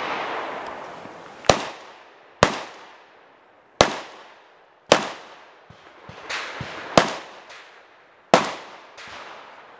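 Six sharp 9mm pistol shots from a subcompact CZ 2075 RAMI, fired one at a time at uneven gaps of about one to two seconds, each with a short echo. A few fainter cracks fall between the later shots.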